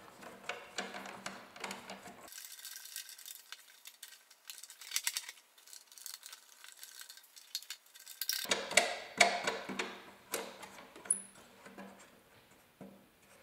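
Windscreen adjustment mechanism of a Yamaha Super Ténéré being worked by hand: a run of clicks, rattles and scrapes from the knobs and brackets, busiest and loudest around nine seconds in.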